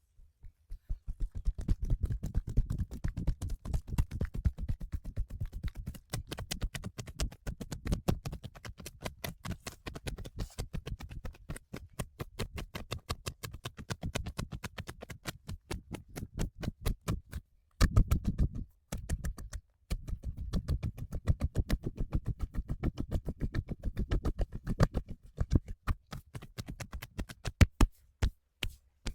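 Rapid, rhythmic hand strikes on a body: percussive massage slapping and tapping, several strokes a second, with two short pauses a little past the middle.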